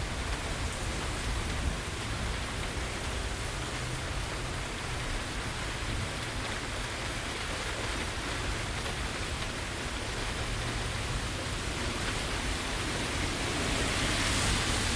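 Steady rain falling in a rainstorm: a continuous even hiss with a low rumble underneath, the hiss swelling a little near the end.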